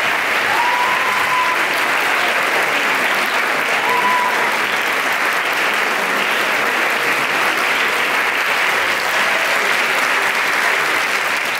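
A large audience applauding steadily, with a few short shouts from the crowd rising over the clapping about a second in and again about four seconds in.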